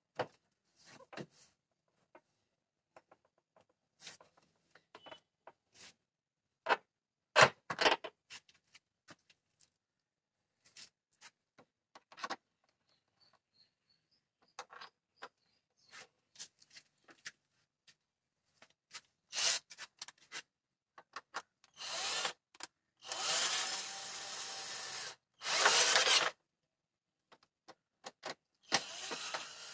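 Scattered clicks and knocks of hands handling the plastic air intake hose and air box under a car bonnet, then a few longer scraping sounds, each a second or two long, in the last third.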